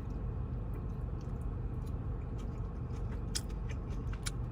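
A person chewing food close to the microphone, with many short wet mouth clicks, over a steady low hum.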